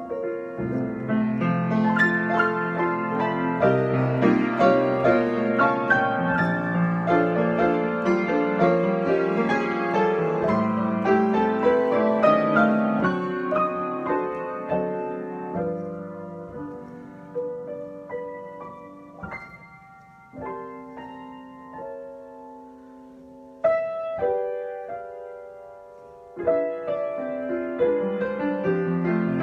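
Piano being improvised. It plays full, busy chords for the first half, then thins to sparse, held notes and chords, with a loud chord struck about 24 seconds in and another about 26 seconds in.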